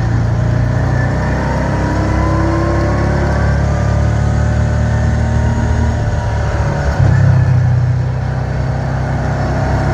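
Side-by-side ATV's engine running as the buggy drives along a dirt track: a steady low drone with a faint whine above it that slowly shifts in pitch. It gets louder for about a second around seven seconds in.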